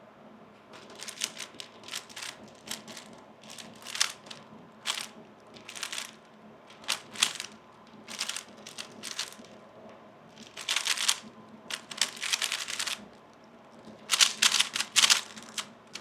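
A 3x3 speedcube being turned fast by hand: quick runs of clicking and clacking as the layers snap round, in bursts with short pauses between, the densest run near the end.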